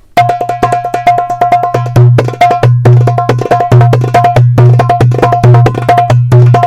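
Darbuka (goblet drum) played in a fast rhythm: quick runs of sharp, bright strokes, several a second, over deep ringing dum tones.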